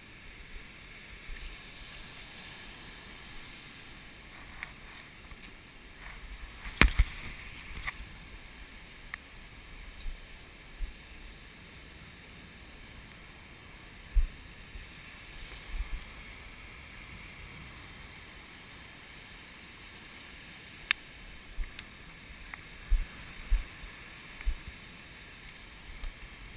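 Shallow ocean surf washing up the beach in a steady hiss, with scattered short low thumps of wind buffeting the microphone and one sharp knock about seven seconds in.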